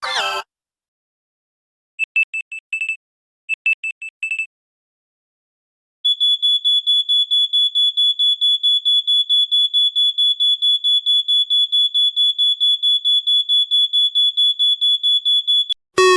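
Phone alert tones from the Android 14 Go Edition sound set: two quick groups of about five short high beeps, then a single high beep repeating rapidly and evenly, about five times a second, for roughly ten seconds in an alarm-like pattern before it stops.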